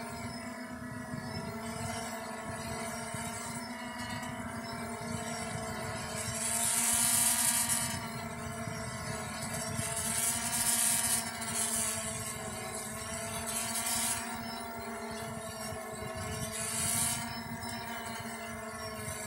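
Yuneec Typhoon H Plus hexacopter's six motors hovering with a water-sampling bailer hanging below, a hum that wavers slowly up and down in pitch. Brief louder hissing rushes come and go three times.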